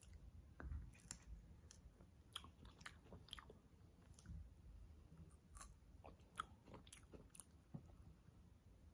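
Faint chewing and nibbling of a fresh strawberry: soft, irregular mouth clicks and small bites.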